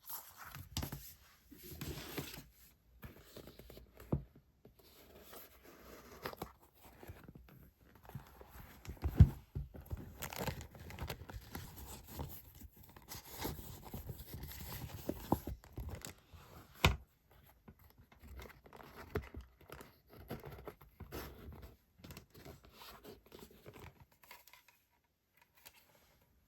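Paper and plastic-wrapped diary-decoration items being handled: irregular rustling, crinkling and tearing-like paper sounds, with a few sharp taps, the loudest about nine seconds in and another about seventeen seconds in.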